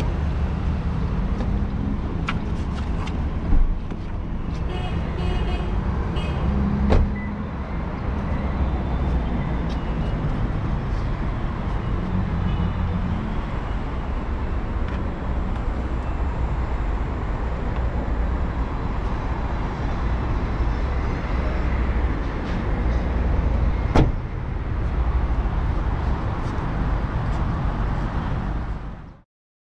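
Steady low rumble from a car, with a few sharp clicks and short knocks, one sharp click near the end of the run. It cuts off abruptly.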